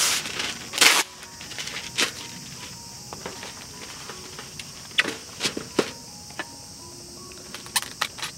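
Rustling and knocking of food handling at a camp table: cooking paper being unrolled and crinkled, and plastic food trays and an aluminium mess tin lid set down on a metal mesh table, as a string of short sharp noises. Under them runs a steady high drone of insects.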